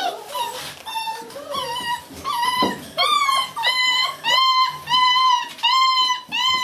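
Six-week-old puppy whining and crying in a string of short high cries, irregular at first, then coming evenly about twice a second in the second half.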